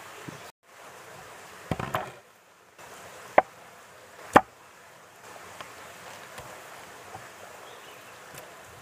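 Sharp knocks on a wooden cutting board as raw chicken legs are handled, the two loudest about a second apart, with a few faint clicks after. A steady rushing hiss runs underneath.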